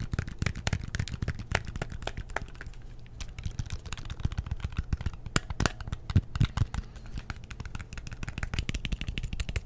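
Rapid, irregular tapping on the plastic casing of an LG Smart TV remote, many small clicks a second.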